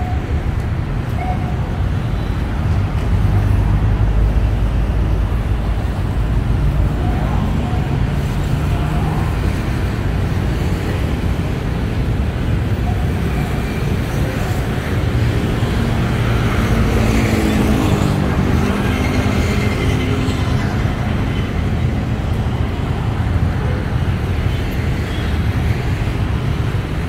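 Steady city road traffic: a continuous low rumble of passing vehicles. About halfway through, one engine passes closer, its pitch rising.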